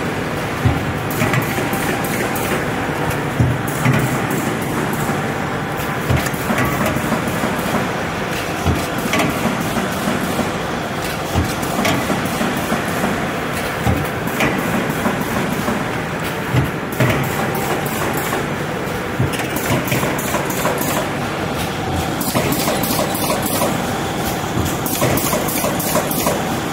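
Corrugated box partition assembly machine running: a steady mechanical clatter broken by frequent knocks as it assembles cardboard dividers.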